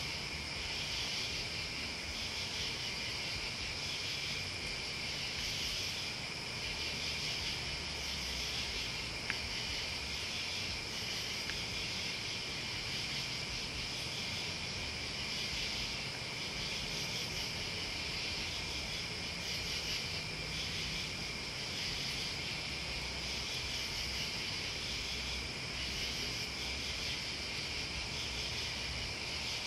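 Night chorus of crickets and other insects, a steady high-pitched trilling with a slight pulsing, over a faint low rumble. A single small click about nine seconds in.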